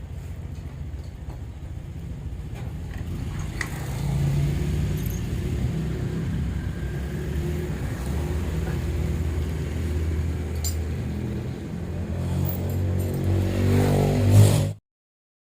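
Honda Scoopy scooter's single-cylinder engine running, the revs rising near the end, then the sound cuts off suddenly.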